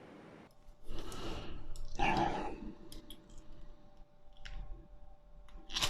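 Handling noise from lacing spokes into a bicycle wheel hub: two rustling scrapes, then scattered light metallic clicks. A breath near the end.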